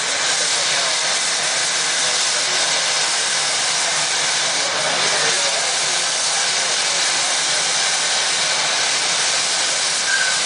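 Gas torch flame hissing steadily as it heats a glass piece held on a punty rod.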